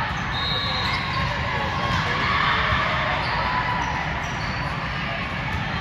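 A ball bouncing on an indoor court, over the steady din of a gym, with short high squeaks now and then.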